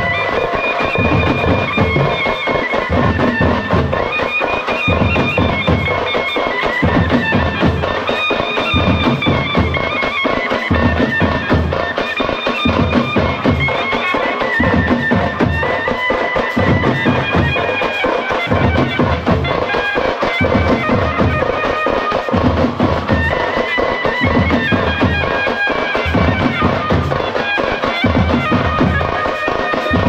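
Background music: a reedy wind instrument playing a wavering melody over a steady drum beat.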